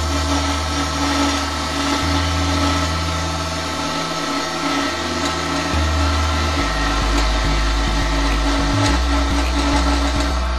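Wood lathe running while a gouge cuts the spinning spindle blank, a steady motor sound under the hiss of the cut.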